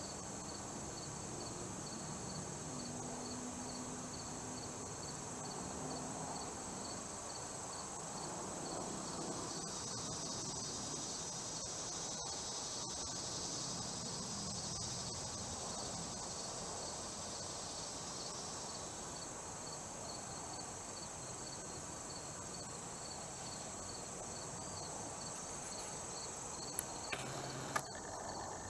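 Chorus of insects: a steady, high, shrill drone with a regular pulsing chirp beneath it. The drone swells for about ten seconds in the middle. A few sharp clicks come near the end.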